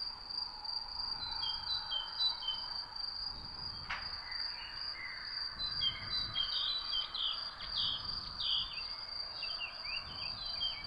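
Steady high insect drone with birds chirping over it. The chirps are short and become busier from about halfway through.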